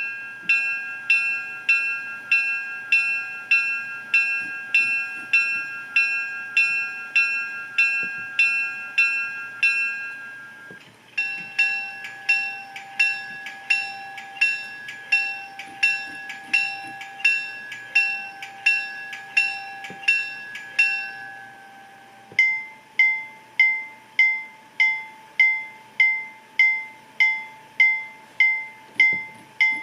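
Diesel locomotive bell sounds from a TCS WOWSound version 4 DCC sound decoder, ringing steadily at about two strikes a second. The bell changes twice, about eleven and twenty-two seconds in, each time to a different tone.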